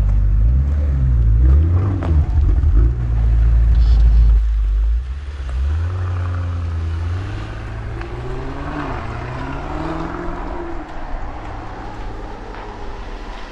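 2023 Range Rover P530's 4.4-litre twin-turbo V8 through a QuickSilver Sound Architect sports exhaust. It is loud and revving in the first few seconds, drops off sharply, then pulls away with the note rising in several successive pulls as it fades into the distance.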